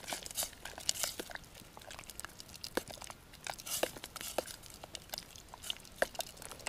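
Spoon stirring a pot of wild garlic while beaten egg is poured in, making irregular light scrapes and clicks against the pot.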